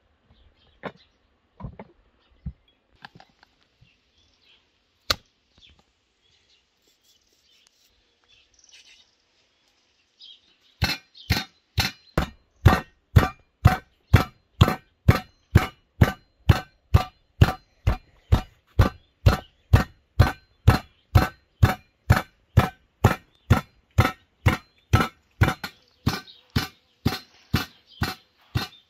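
Knife chopping raw meat on a wooden cutting board: steady, even strokes about twice a second, starting about eleven seconds in. Before that, only a few scattered light taps.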